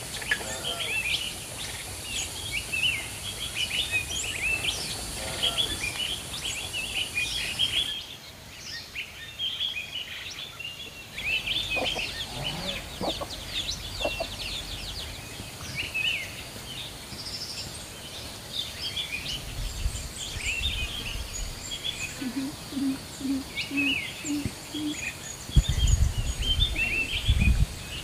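Small birds chirping and calling all through, with chicken sounds: chicks peeping and a hen clucking, including a run of five short low clucks late on. A steady high insect hiss runs under the first part, and a few low thumps come near the end.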